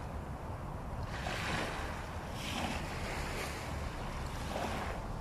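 Small waves washing up on a sandy beach, several soft swells of surf hiss about a second apart, over a steady low rumble of wind on the microphone.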